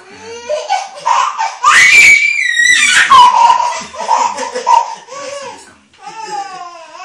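Laughter in a small room, including a baby's laughing and a high squeal about two seconds in.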